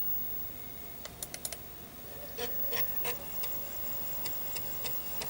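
Amiga 500+ internal floppy drive working a disk: a quick run of clicks a little past one second in, then, from about halfway, its motor hums steadily while the head steps with regular clicks about three a second.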